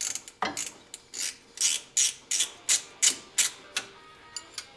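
Hand tool working a fitting on a Jeep rear axle's brake line: a run of short, sharp clicking strokes, about three a second, that stops with two light ticks near the end.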